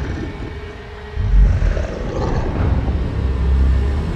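A deep, loud rumble swells up suddenly about a second in and holds steady: a designed film sound effect.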